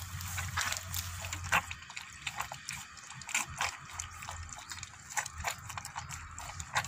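Several puppies lapping and slurping milk and soaked food from a metal plate: a quick, irregular run of wet licks and smacks.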